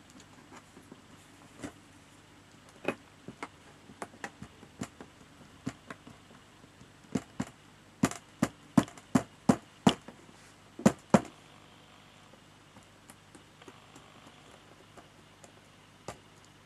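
Irregular sharp taps or knocks on a hard surface, sparse at first, then a quick run of about a dozen loud ones from about seven to eleven seconds in, then a few faint ticks.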